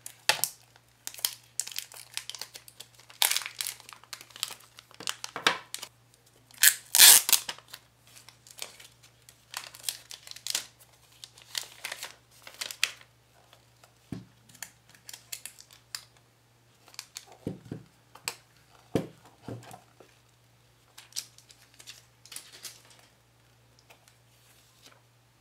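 Clear protective plastic film being peeled off and handled, crinkling and crackling irregularly; the loudest crackle comes about seven seconds in, and it thins out near the end.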